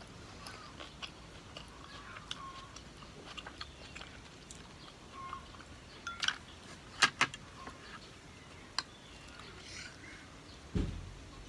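Close-miked eating sounds: soft, wet chewing and mouth noises, with scattered sharp clicks, the loudest a pair about seven seconds in, and a low thump near the end.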